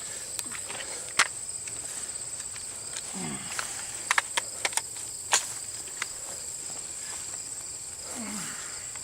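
Steady high-pitched insect chorus, with scattered sharp clicks and knocks, several of them about four to five seconds in, and two brief low vocal sounds.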